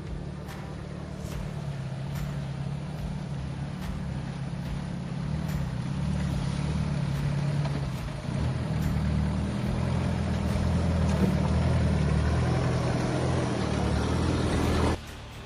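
A 4x4's engine running as the vehicle drives through a shallow creek crossing, growing louder as it approaches, with a rushing water noise building in the second half. The sound cuts off suddenly near the end.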